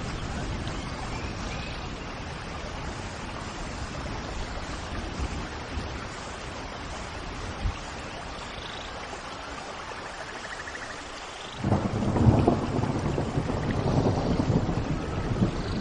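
Steady rain falling, with thunder breaking in suddenly about two-thirds of the way through as a loud, low rolling rumble that carries on. A few faint bird chirps sound over the rain.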